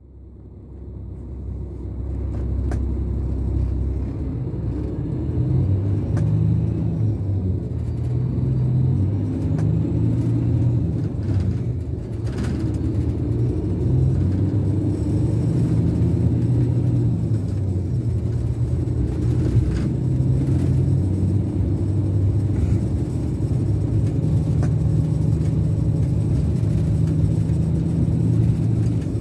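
Scania K410 coach's DC13 inline six-cylinder diesel heard from inside the upper deck while driving: a steady low rumble that fades in over the first few seconds, its pitch rising and falling as it pulls.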